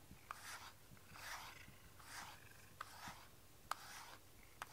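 Soft, scratchy strokes through a cat's fur, about one a second, with a few faint ticks.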